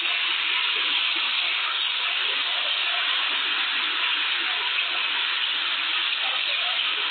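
Steady rushing of a river in flash flood, with rain falling, an even hiss with no breaks.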